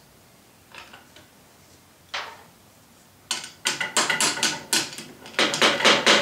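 A few faint clicks, then a little past halfway a quick run of sharp knocks, about four or five a second, from hand work on the clamped wooden drawer box and its pipe clamps.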